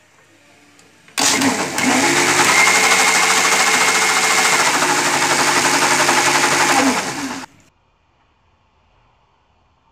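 Electric mixer grinder running with its steel jar, blending curd and water into buttermilk. It starts about a second in with a rising whine, runs steadily for about six seconds, then winds down and stops.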